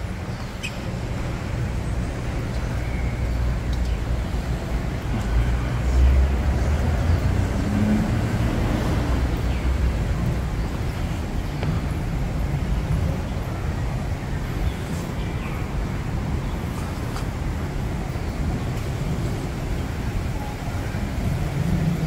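Outdoor city ambience: a steady low rumble of nearby road traffic, with faint voices of passers-by.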